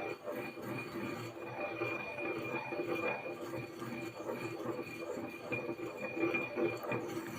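Pestle grinding and stirring in a mortar, a steady run of scraping with small irregular clinks, as succus (licorice extract) is worked into a little distilled water until it dissolves.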